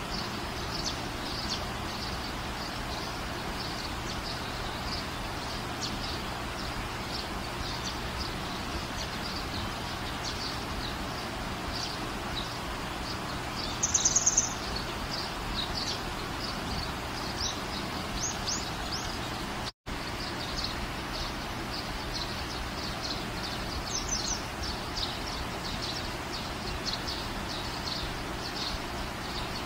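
Small birds chirping often, in short high chirps, over a steady background hiss. About halfway through there is a brief, louder clicking rattle, and just after two-thirds through the sound cuts out for a split second.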